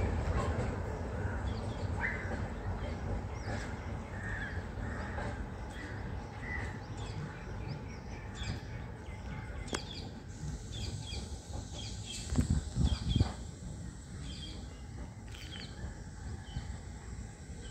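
Crows cawing repeatedly over the fading low rumble of a departing DEMU train. A few loud low thumps come about two-thirds of the way through.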